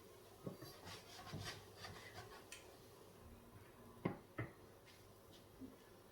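Kitchen utensils being handled while frying pancakes: light scraping and clicking, then two sharp knocks in quick succession about four seconds in, over a faint steady hum.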